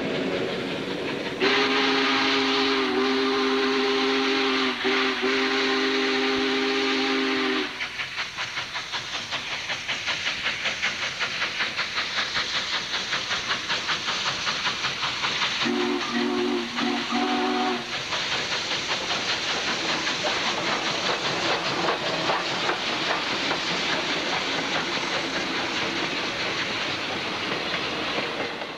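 Steam locomotive whistle sounding one long chord of several notes, then the engine's exhaust chuffing at a steady beat over a constant hiss of steam. About halfway through the whistle sounds again in three short blasts.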